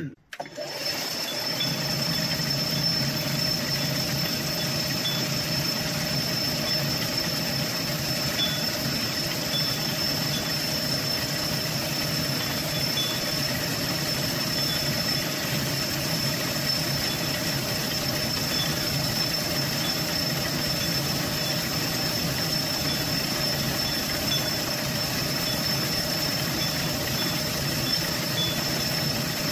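Metal lathe running steadily while milling a keyway slot along a tool arm, an even mechanical hum with a thin high whine.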